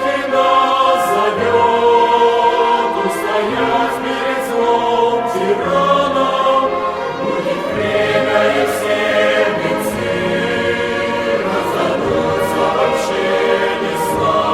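A choir singing a slow hymn in sustained chords, the harmony shifting every second or two.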